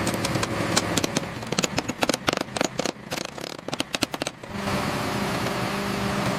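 Machine engine running, with a rapid irregular clatter of clicks and crackles for about the first four seconds, then settling to a steady hum.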